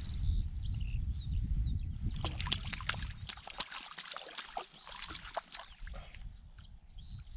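Water splashing and sloshing in quick, irregular splashes for a few seconds, after a low rumble in the first two seconds.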